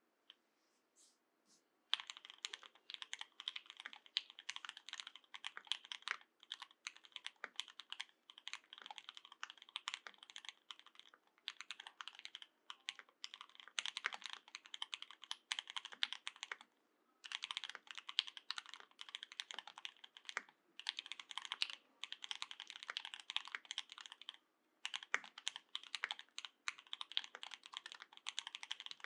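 Continuous fast typing on a custom 60% mechanical keyboard with lubed OA switches and GMK keycaps: a dense stream of keystroke clacks, beginning about two seconds in, with two brief pauses.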